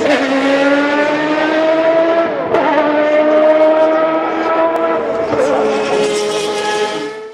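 Racing car engine running at high revs, its pitch sagging slowly, with a short break about two and a half seconds in. It cuts off suddenly at the end.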